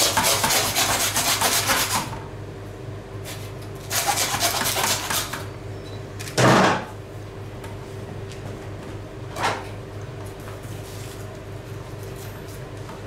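A butcher's knife cutting through the belly and ribs of a hanging half pig carcass, a rasping scrape for about two seconds, then again about four seconds in. A brief loud pitched sound comes at about six and a half seconds, with a smaller one near ten seconds, over a steady low hum.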